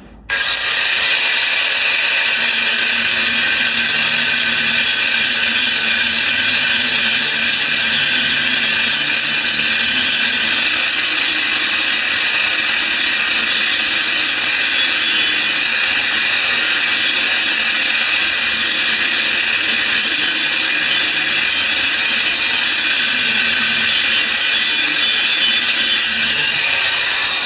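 MIG welder arc sizzling and crackling steadily through one long run on thin sheet metal. It starts abruptly and cuts off at the end of the bead.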